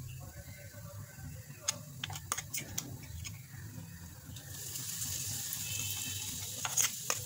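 Cumin seeds crackling in hot oil in a nonstick frying pan, with a few sharp pops. About four and a half seconds in, a steady sizzle starts as ground peanut and green chili paste goes into the hot oil, with a couple of clicks near the end.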